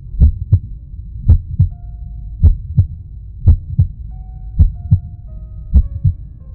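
Paired low thumps in a slow, steady rhythm, about one double beat a second, like a heartbeat, over a low rumble, with faint held tones above.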